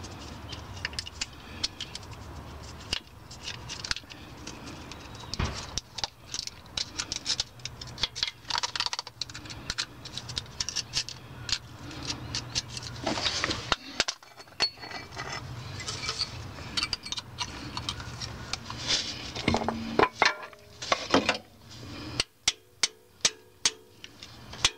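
Metal scraping and clicking as a gasket separator blade is worked by hand into the seam between an oil pan and the engine block, through old RTV sealant. Near the end, a two-pound hammer begins striking the separator tool in sharp, evenly spaced blows, about two or three a second, to drive it in.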